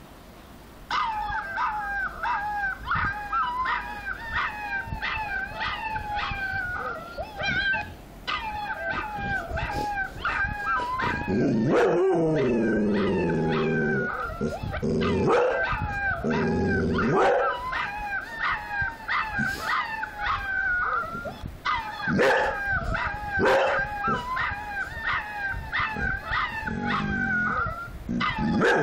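Husky puppies howling in high, wavering voices through a laptop speaker, with a golden retriever joining in from about a third of the way through with several deeper, falling howls of its own.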